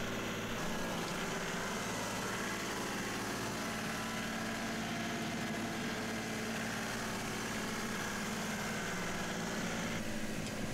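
John Deere 2038R compact tractor's three-cylinder diesel engine running steadily.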